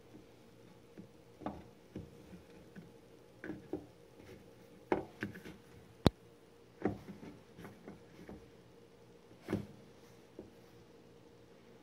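Hands patting and handling a soft flatbread on a wooden cutting board: irregular soft taps and knocks, with one sharp click about six seconds in.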